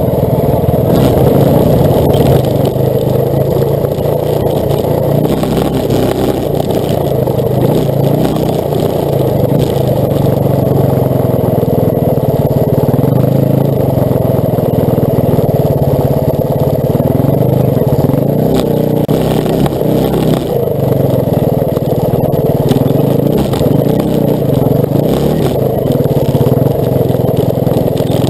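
Trail motorcycle engine running under way, its revs repeatedly rising and falling as the throttle is worked.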